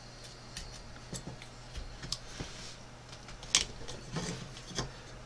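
A carving knife taking small cuts in a wooden spoon's carved handle: a few short, scattered clicks and scrapes, the loudest about three and a half seconds in. A faint steady low hum lies underneath.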